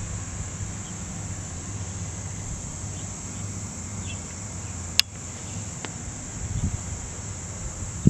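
Steady high-pitched insect chorus over a low, uneven rumble, with one sharp click about five seconds in.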